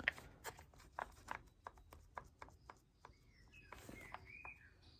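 Faint, irregular light clicks and taps from the leaf blower's recoil starter assembly being handled. From about three seconds in, a few short bird chirps join in.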